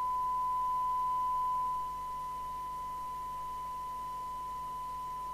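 Steady 1 kHz test tone from a signal generator, received and played out by a PNI HP55 CB radio during a SINAD receive-sensitivity check. The tone drops a little in level about two seconds in, over a faint hum and hiss.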